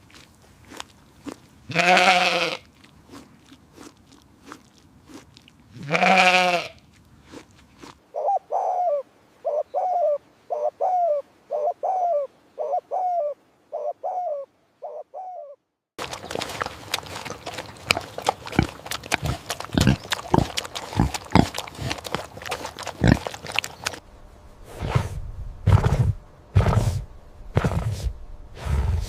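Animal sounds in several short scenes: two long pitched calls, then a run of short, evenly repeated calls about two a second, then a dense crackling and crunching, and low grunts near the end.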